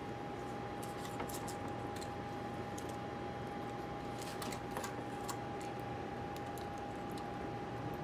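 A few faint, light clicks and scrapes of a laptop hard drive and its metal bracket being handled and fitted, over a steady background hiss with a thin, steady whine.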